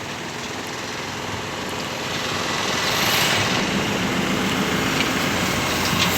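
A motor vehicle's engine running steadily, getting a little louder about halfway through.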